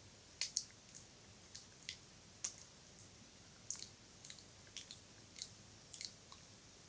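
Wet mouth sounds: soft, irregular clicks and smacks of lips and tongue, about two a second.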